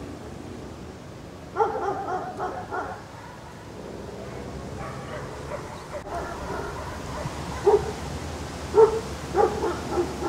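A dog barking: a quick run of short barks about two seconds in, then several louder single barks near the end.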